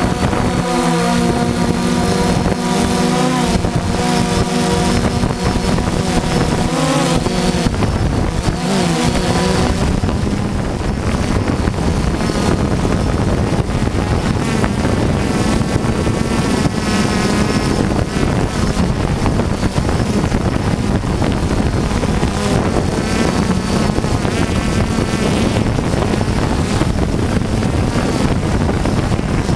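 Multirotor drone's motors and propellers running, heard from its onboard camera: a buzzing hum that shifts in pitch during roughly the first nine seconds as the drone comes down, then a rougher, steadier rush with wind on the microphone.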